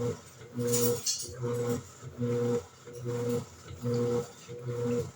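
Electrolux LED14 top-load washing machine agitating: the motor hums in short strokes of about half a second, one after another roughly every three-quarters of a second, as it swings the wash back and forth. A brief hiss rides on one stroke about a second in.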